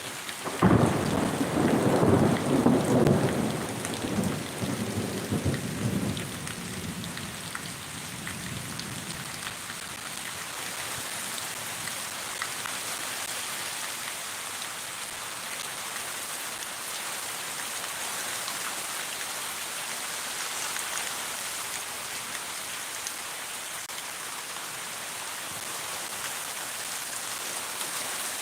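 A thunderclap from close lightning breaks out about a second in and rumbles away over several seconds, over steady heavy rain. The rain then keeps on alone as an even hiss.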